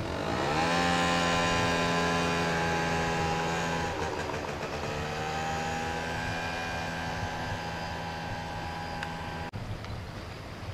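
A motor engine running at a steady pitch: it rises quickly at the start and then holds steady, falters briefly about four seconds in before settling back to the same pitch, and cuts off abruptly near the end.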